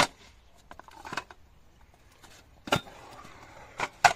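Skateboard clacking on concrete and metal edges: a sharp crack at the start, then further knocks and slaps about a second, nearly three and about four seconds in, with wheels rolling in between.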